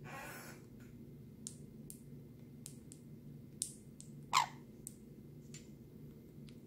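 Sun conure chewing, its beak making faint scattered clicks, with one short falling squeak about four seconds in.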